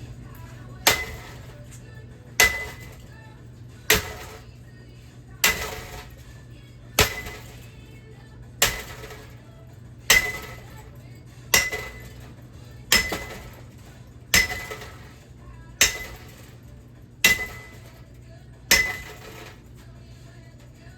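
Metal parts of a ceiling fan being struck again and again: thirteen sharp clanks at an even pace, about one every second and a half, each ringing briefly.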